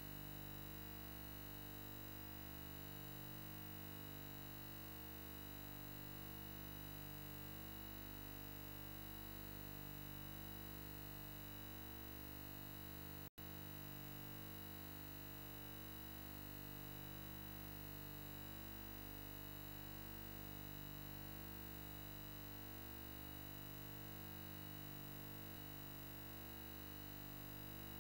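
Faint steady electrical hum and hiss with a slow pulsing about every two seconds. It cuts out for an instant about halfway through.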